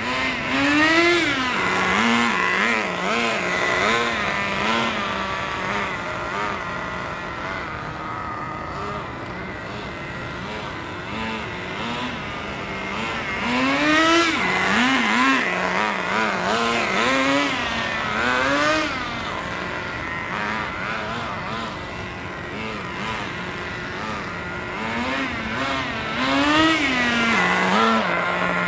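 Small two-stroke nitro (glow-fuel) engine of an RC car running, revved in repeated quick blips in three louder spells, near the start, in the middle and near the end, and settling to a steadier lower note between them.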